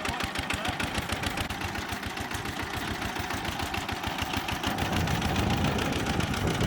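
Walk-behind tractor engine running with a rapid, even pulse, growing louder about two-thirds of the way in.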